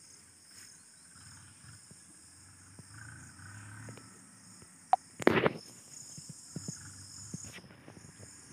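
A steady high chorus of insects shrilling. Scattered small clicks run through it, and one loud, brief noise comes about five seconds in.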